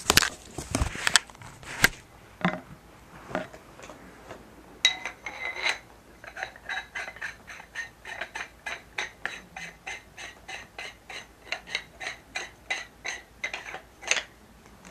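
A few loud knocks and bumps of handling, then a steady run of light, ringing clicks, about three or four a second.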